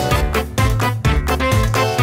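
Instrumental background music with a steady beat and a bass line that moves from note to note.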